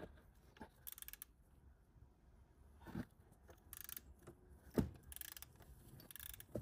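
Faint hand ratchet clicking in four short runs as a 16 mm socket works the nut on the serpentine belt's top guide pulley, with a few sharp knocks of tool on metal in between.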